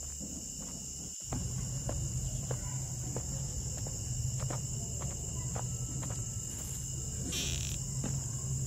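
Crickets trilling steadily, over a low steady hum and faint scattered clicks.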